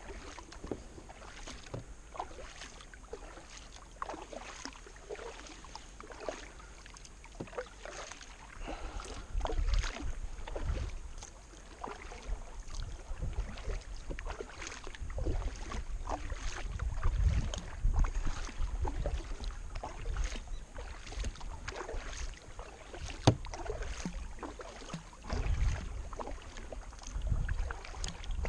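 Kayak paddling upstream against the current: a steady run of paddle blades dipping and splashing, with drips and small knocks. Wind buffets the microphone in low rumbles at times.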